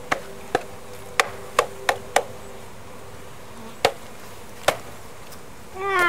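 Wooden bee package cage knocked sharply about eight times, irregularly, to jar the remaining honeybees out into the hive, over the steady hum of the bees, which fades out about halfway through.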